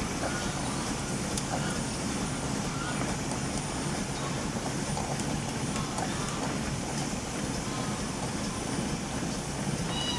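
Steam launch under way, a steady low running noise from its steam engine and the boat moving through the water.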